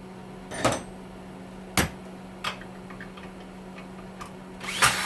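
Scattered sharp clicks and knocks of tools and metal and plastic parts being handled while an electric heater is taken apart, with a louder cluster of knocks near the end, over a steady low hum.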